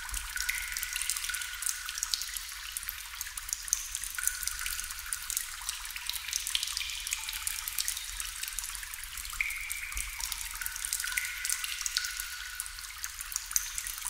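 Water drops falling into water: a continuous patter of small, high drips, with a short ringing plink every second or few.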